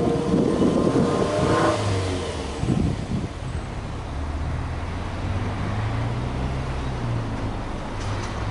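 Subaru Legacy Blitzen's EJ20 flat-four engine, heard from its exhaust, revved with the car standing still, the pitch rising in the first two seconds. It then drops back about three seconds in and settles to a steady, low idle.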